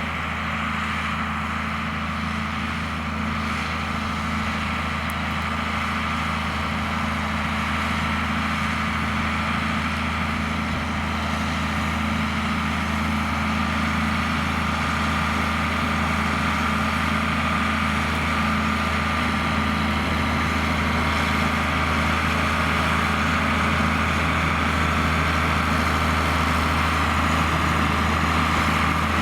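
John Deere 4850 tractor's six-cylinder diesel engine running steadily while pulling a six-furrow plough, with a steady high whine over the low engine note, slowly growing louder.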